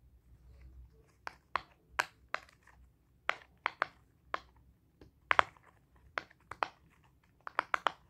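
Silicone pop-it fidget toy (soccer-field design) having its bubbles pressed by fingers: an irregular run of short pops, about two to three a second, coming faster near the end.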